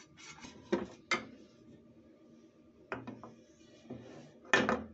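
Kitchen utensils clicking and knocking against a frying pan while batter is poured into it, a few separate knocks with a louder clatter near the end.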